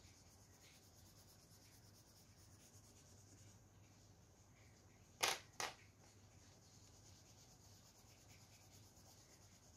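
Near-silent room tone with two short, sharp clicks about half a second apart, roughly halfway through.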